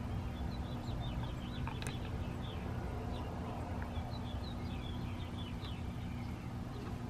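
Small birds chirping repeatedly in the background over a steady low hum, with a single light click about two seconds in.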